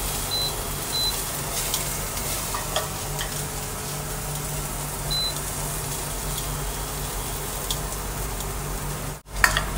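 Diced onion, carrot and celery sizzling steadily in a nonstick frying pan on turned-down heat, with light scraping and stirring from a spatula as tomato paste goes in. Three short high beeps sound in the first half, and the sound drops out for a moment near the end.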